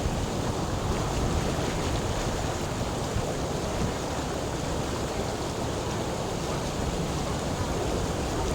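Flowing water, a steady rushing noise heaviest in the low range, with no breaks.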